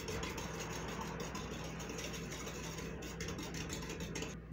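Wire whisk beating melted butter, sugar and eggs in a glass mixing bowl: a rapid, steady clicking and scraping of the wires against the glass, stopping near the end.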